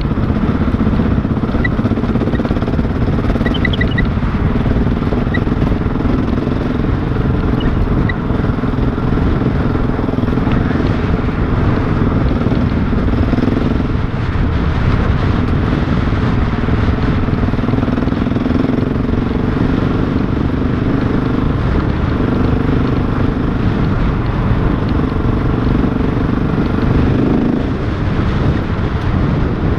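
Motorcycle engine running steadily while riding a gravel track, heavy wind noise on the microphone. The engine eases off briefly about two-thirds of the way through and again near the end.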